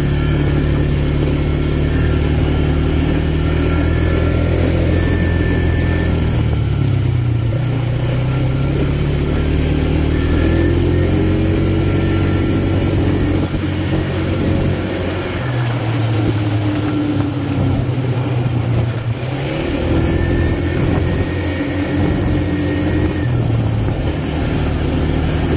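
ATV engine running under way, its pitch rising and falling several times as the throttle changes, over steady noise from the tyres on a gravel trail.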